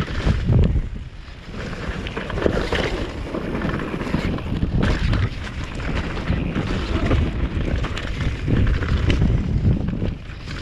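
Wind buffeting the action camera's microphone during a fast downhill mountain-bike descent, mixed with the rattle and tyre noise of a Commencal V4.2 downhill bike over rough trail.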